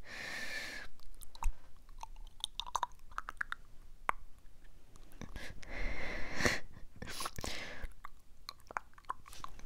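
ASMR mouth sounds made right against a small foam-covered microphone: many wet clicks and smacks, with breathy hissing stretches at the start and again about six and seven seconds in.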